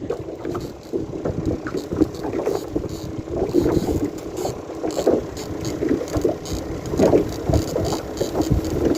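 Wind gusting on the microphone over water splashing and sloshing, an uneven, noisy sound with no steady rhythm.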